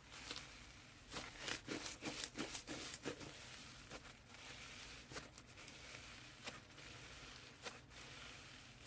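Crunchy slime being squeezed and pressed by hand, giving off crisp crackling pops: a quick run of them about a second in, then single pops every second or so.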